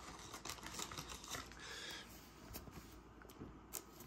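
Faint rustling and light clicks of glossy trading cards being handled and slid against one another, with a short soft swish about one and a half seconds in.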